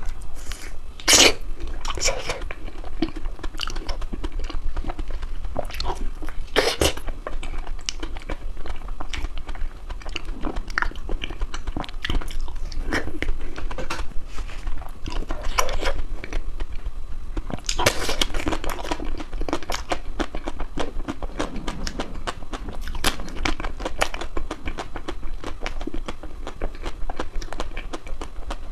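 Crispy ice cream being bitten and chewed close to the microphone: irregular crunches one after another, with a few louder crunches about a second in, around 7 seconds and around 18 seconds.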